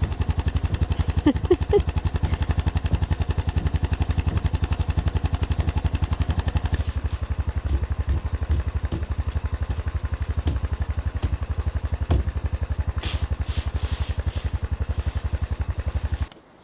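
Small engine running steadily close by, with a rapid, even pulse, and a few knocks and hissing patches over it in the second half. It stops abruptly shortly before the end.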